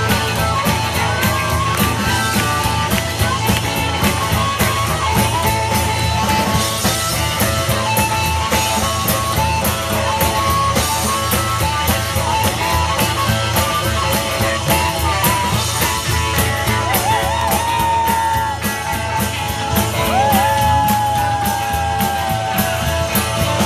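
Live band playing an instrumental break: amplified blues harmonica carrying the melody with held, bending notes over upright bass, electric guitar and a drum kit keeping a steady beat.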